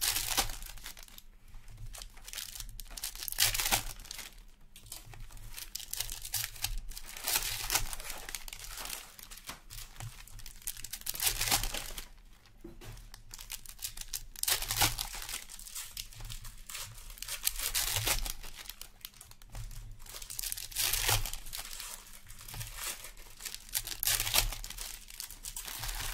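Foil wrappers of Upper Deck Ice hockey card packs being torn open and crumpled by hand, in repeated crinkling bursts a second or two long.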